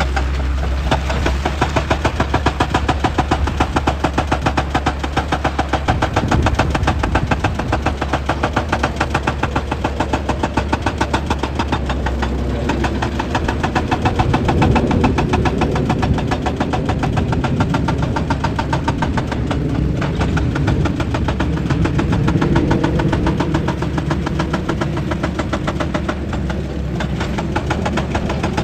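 Excavator working rock, its diesel engine running under load with a rapid, steady knocking rhythm. The low, heavy part of the sound builds from about six seconds in.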